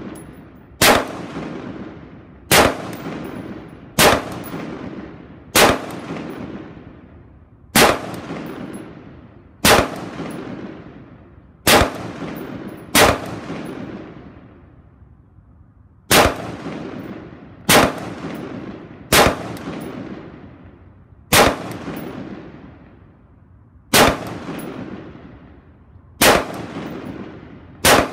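Daniel Defense MK12 semi-automatic 5.56 rifle with an 18-inch barrel and compensator fired in slow, deliberate single shots, about fifteen in all, one every second and a half to two seconds, with a pause of about three seconds midway. Each shot is followed by a long echo that fades over more than a second.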